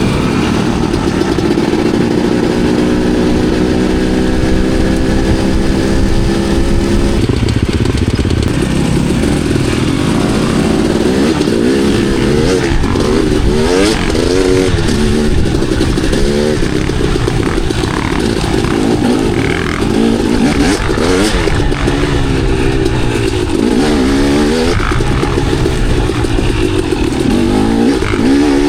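Enduro dirt bike engine under way, holding a steady note for the first several seconds, then revving up and down over and over as the throttle is worked.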